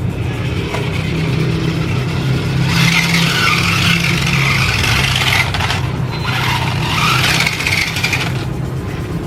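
Toy RC car driving under its small DC drive motor and gears, running in two spells of about three and two seconds.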